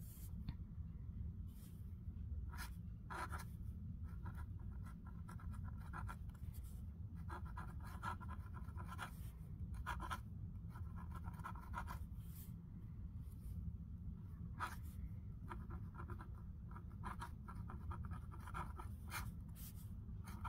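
Pilot Falcon fountain pen, its soft fine nib custom-ground to a flexible italic, scratching over paper as cursive handwriting is written. The scratching comes in short bursts stroke by stroke, with brief clicks between them.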